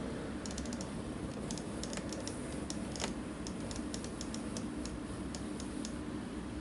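Light, irregular clicks and ticks as a dye applicator is pressed and run along a leather welt strip, blacking its edge, over a steady low hum.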